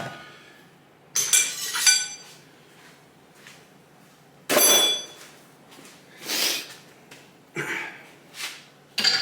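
Metal motorcycle front-fork parts clinking and ringing as they are handled, with two sharp metallic strikes about a second in and about four and a half seconds in, then softer scrapes and handling noises.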